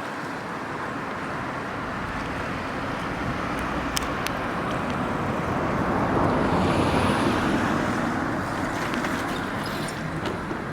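Steady rushing outdoor noise that swells and fades again about six to eight seconds in, with a few sharp clicks about four seconds in.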